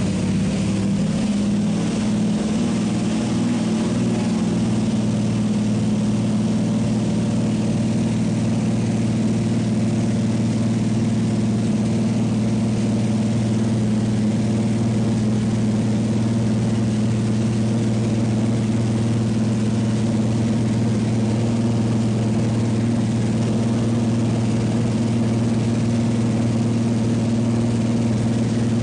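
Floatplane's propeller engine running with a steady low drone as the plane taxis on the water, heard from inside the cabin.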